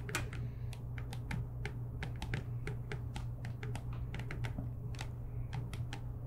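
Stylus tips tapping on tablet screens as two people handwrite: quick, irregular clicks several times a second, over a steady low hum.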